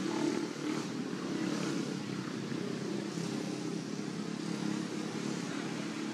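A steady engine hum, level throughout with no distinct events.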